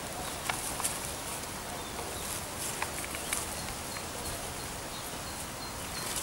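Quiet garden ambience: a steady faint hiss with small bird chirps, and a few light snaps and rustles as borage leaves are picked by hand.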